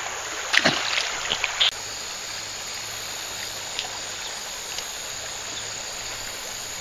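A few splashes in the first couple of seconds as a small smallmouth bass is let go by hand into a creek, then the steady rush of the flowing creek water.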